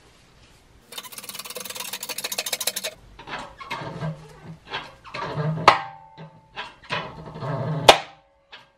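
Makeshift hand-pumped shop press being worked to push a rusted wheel bearing out of a Honda Civic hub. A quick run of fast ratchet-like clicking, then a series of knocks and strains with two sharp metal cracks, the second the loudest. The first crack is followed by a brief ringing.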